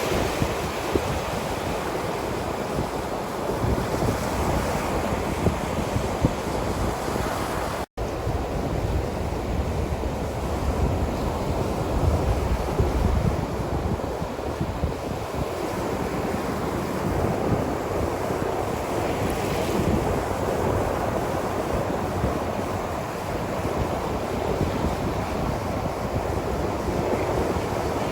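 Ocean surf washing onto a shore with wind, a continuous dense wash of noise with a deep rumble underneath and waves swelling up now and then. The sound cuts out for a split second about eight seconds in.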